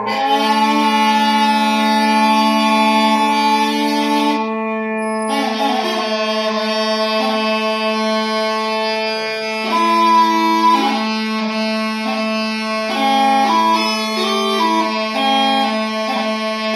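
Mouth-blown Scottish smallpipes playing: the drones hold one steady low note while the chanter sounds a long held note, stops briefly about four seconds in, then moves through a series of changing, shorter notes. The pipes are being tuned, chanter against drones.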